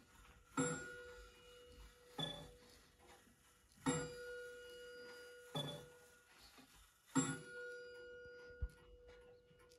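Wooden wall pendulum clock striking the hour: five strokes, about one every 1.6 seconds, each ringing on and fading slowly.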